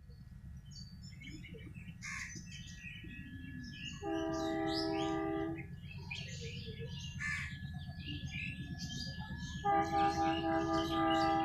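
ALCO diesel locomotive engine rumbling steadily, with two long multi-tone horn blasts: one about four seconds in lasting about a second and a half, and another starting near the end. Birds chirp throughout.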